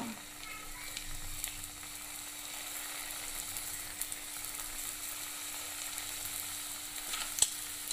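Egg-stuffed dough parcels (mutta kizhi) sizzling in hot oil in a frying pan as they are dropped in one by one, with a steady hiss and scattered crackles. A single sharp tap comes near the end.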